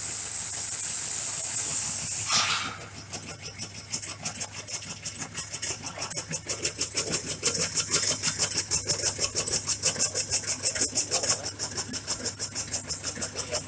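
Tobacco shredding machine running and chopping tobacco leaf into fine shreds. A steady, high-pitched running sound drops about two and a half seconds in and gives way to a rapid, even chopping rhythm that grows louder toward the end.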